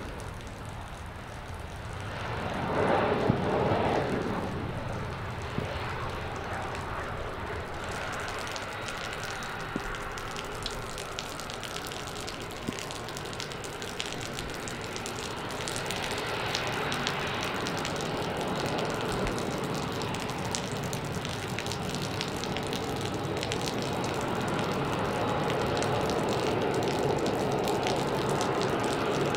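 Boeing 737-400 CFM56 jet engines on the landing rollout and taxi. A brief louder surge of engine noise comes about three seconds in, then a steady rumble with a thin whine at taxi power, slowly growing louder as the jet comes nearer.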